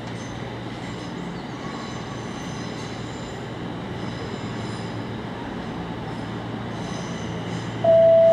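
London Midland Class 350 Desiro electric multiple unit running slowly into the station over pointwork: a steady hum with faint, intermittent high wheel squeal. Near the end the first note of the station's announcement chime comes in loudly over it.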